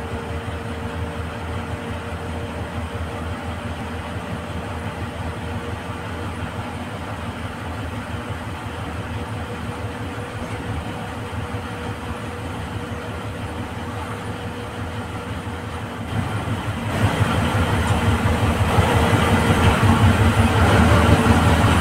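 Engine and road noise of a GSRTC express bus at highway speed, heard from inside the driver's cab: a steady drone with a faint thin whine, growing louder about sixteen seconds in.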